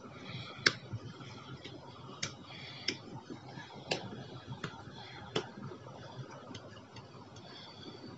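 Fingertips slapping against an open palm: about eight sharp, irregularly spaced taps, the first, about half a second in, the loudest.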